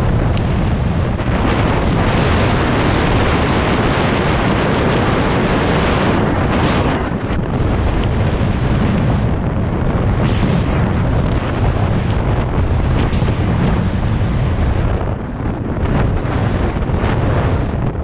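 Wind buffeting an action camera's microphone during a fast downhill mountain-bike descent, mixed with the bike's tyres on the dirt trail and occasional knocks from the bike over bumps. The noise is loud and continuous, easing briefly about two thirds of the way through.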